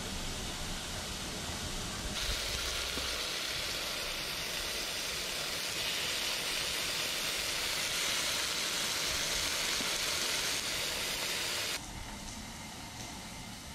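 Slices of beef sizzling in a frying pan: a steady hiss that starts suddenly about two seconds in and cuts off near the end.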